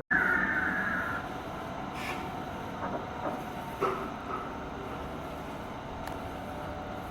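Steady mechanical running noise, with a higher hiss-like band in the first second and a few faint clicks and knocks scattered through it.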